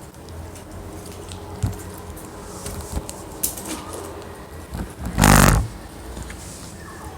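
Hands squishing and stretching slime, with scattered small clicks and crackles, and one loud burst of noise about five seconds in.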